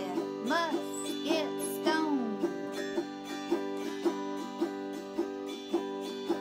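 Autoharp strummed in a steady rhythm of about two strokes a second, its chords ringing on between strokes. Over the first two seconds a separate melody line slides up and down above the chords.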